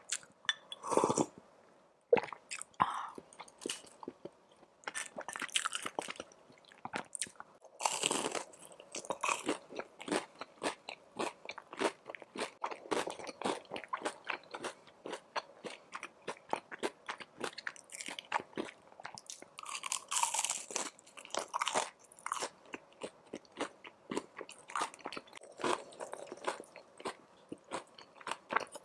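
Close-miked eating: crisp crunching and chewing of a deep-fried spring roll, many short crackling crunches throughout. A slurp of soup broth comes about a second in, and a few longer, louder bursts come later.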